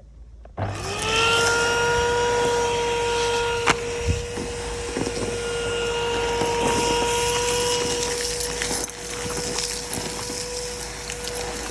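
Numatic Bertie canister vacuum cleaner switched on about half a second in: the motor spins up to a steady whine over the rush of suction air and keeps running while it hoovers, with a few sharp knocks of the hose or tool a few seconds in.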